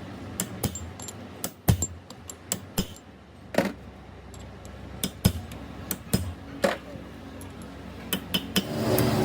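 Irregular sharp metallic knocks and clinks, about a dozen, like metal parts or tools being handled and set down, over a low steady hum.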